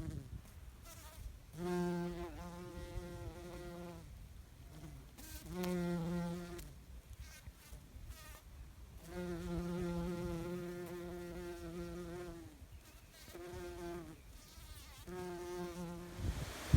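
A flying insect buzzing close by, a steady hum that comes and goes in five bouts of one to three seconds, the longest near the middle.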